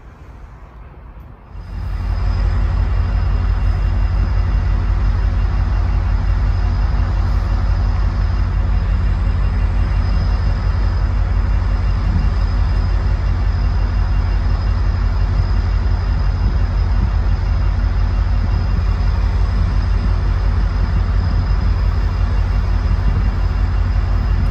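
Distant approaching train: a steady low rumble with hiss that starts abruptly about a second and a half in and holds an even loudness.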